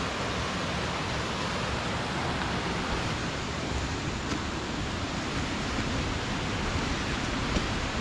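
Steady rush of a waterfall, an even noise with no change, with a couple of faint ticks.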